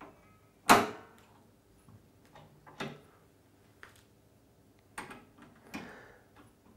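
Knocks and clicks of a shock absorber being set into a steel clamping vise on a workbench tool and clamped: a sharp clack about a second in, then several lighter knocks spaced out over the next few seconds.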